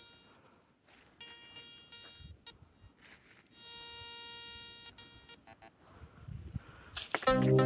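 Metal detector giving its target signal: a steady buzzy beep, sounded three times about a second and a half each, the last as two short blips. Electronic music comes in loudly near the end.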